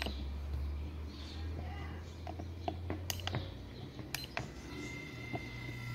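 Electric fan motor running with a steady low hum, its bushings freshly lubricated. Several sharp clicks come from its push-button control panel. About four seconds in, the hum rises in pitch and a thin whine joins it.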